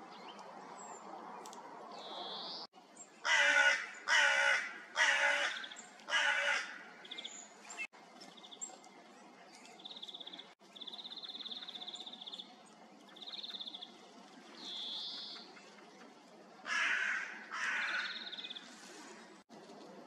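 Hooded crow cawing: four loud caws about a second apart, then two more near the end. In between, softer high trills of European greenfinches.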